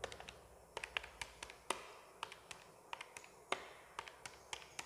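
Chalk tapping on a blackboard as figures are written and added: a series of faint, irregular sharp taps.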